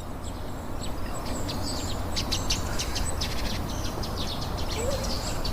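Small birds chirping in quick, repeated short notes, busiest in the second half, over a steady low background rumble.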